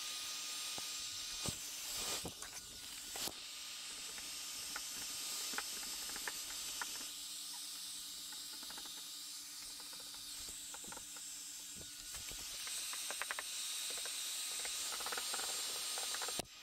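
Heat gun blowing, a steady hiss with a faint low motor hum, warming paint protection film on a car hood. Scattered small clicks and taps from handling the tool and film, with a cluster about two to three seconds in and another near thirteen seconds.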